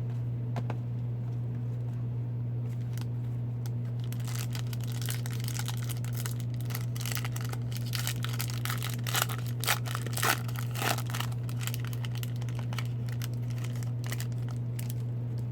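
Hockey card pack wrapper being torn open and crinkled, a dense run of crackles from about four to eleven seconds in, over a steady low hum.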